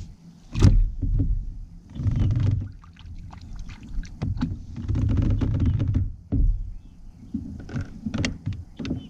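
Handling noise inside a plastic kayak: sharp knocks and low thumps against the hull with rustling, as a caught bream thrashes and tangles the line. The loudest knock comes about half a second in.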